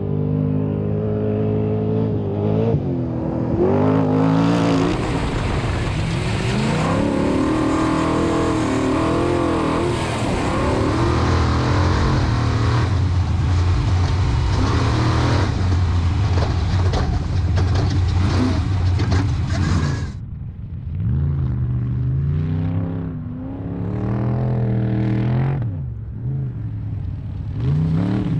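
Off-road race truck engine revving hard, its pitch climbing and dropping with the throttle. From about four seconds to twenty seconds it runs flat out with heavy rushing noise, then goes back to repeated rises and falls in revs.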